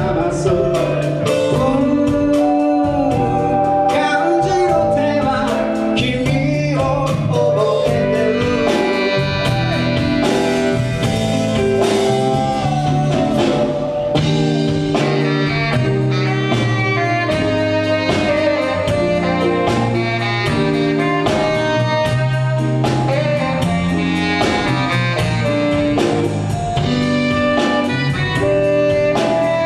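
Live band playing a blues-style number with guitar, bass, drums and horns on a steady beat, a sung or saxophone melody over it.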